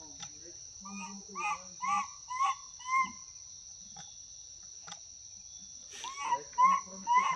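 Steady high-pitched drone of insects, with two runs of short, rising-and-falling animal calls over it. The first run of about five calls comes about a second in, and four more come near the end.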